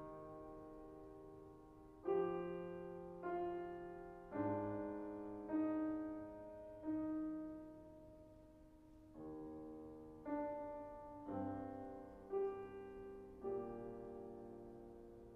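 Grand piano playing slow, separate chords, about one a second, each struck and left to ring and die away, with a slightly longer pause about halfway through.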